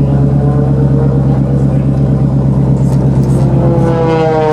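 Muscle car's engine and exhaust running loudly with stealth mode off, a steady idle with a brief rev whose pitch sinks back down near the end.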